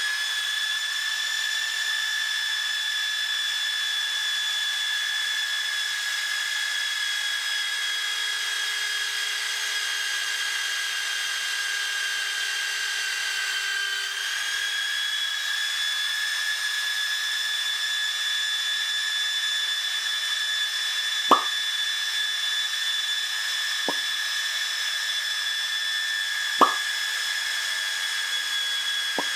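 Electric drill in a drill-press stand running at a steady high whine while a small twist bit bores into an aluminium block. The pitch sags slightly about halfway through and then recovers, and a few sharp clicks come in the last third.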